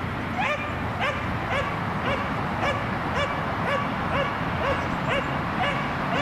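Belgian Malinois barking repeatedly and evenly, about two barks a second.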